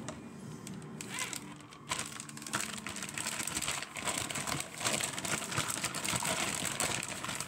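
Plastic zipper-lock bag crinkling and rustling as it is handled and squeezed, a busy crackle that starts about two seconds in.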